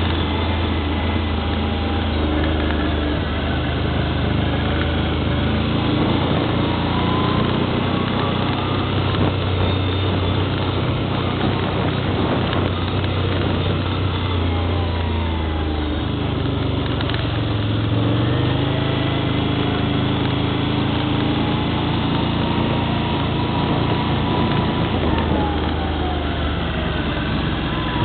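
ATV engine running as it is ridden, its pitch rising and falling repeatedly as the throttle is opened and eased off.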